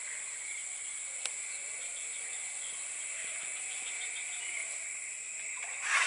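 Steady insect chorus of paddy-field crickets or cicadas, two shrill high buzzing tones held without a break. There is a faint click about a second in and a brief louder noise at the very end.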